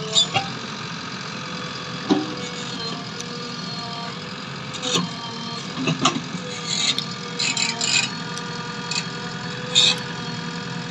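JCB 3DX backhoe loader's diesel engine running steadily while the backhoe arm works, with several sharp knocks and clanks every few seconds.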